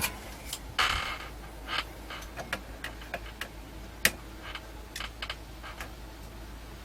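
Small clicks and taps of tools and electronic parts being handled on a workbench during soldering work, with a short rustle about a second in and one sharp click about four seconds in.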